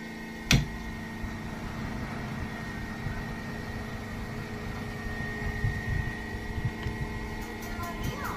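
Stranger PBT 701 speaker giving a steady hum and hiss with a faint high whistle and no music playing, the sound problem under test; one sharp click about half a second in.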